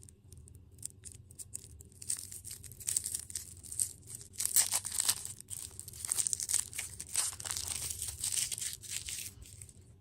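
Plastic candy or dessert packaging being torn open and crinkled: a few faint ticks, then dense, fast crinkling that starts about two seconds in and stops near the end.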